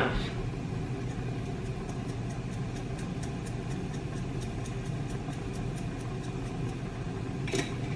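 Steady low hum with a soft hiss from lit gas stove burners running under the pots, with faint light ticks.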